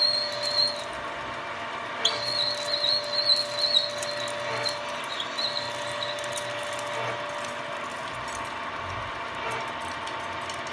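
Milling machine with a large drill bit cutting a one-inch hole in a solid aluminum block. The cut squeals, briefly at first and again from about two to six seconds in, over the steady whine of the spindle, which runs on after the squealing stops.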